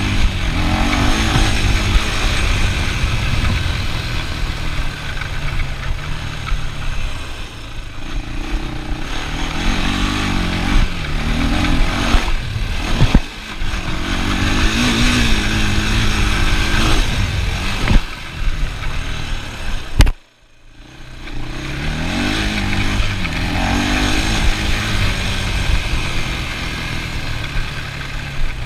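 ATV engine revving up and down in repeated swells while riding. About two-thirds of the way in, a sharp click is followed by the sound dropping out for half a second before the engine comes back.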